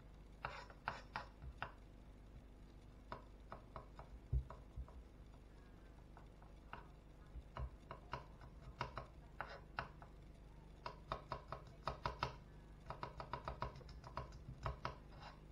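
Kitchen knife slicing garlic cloves on a plastic cutting board: irregular runs of quick, sharp taps as the blade meets the board, busiest in the second half.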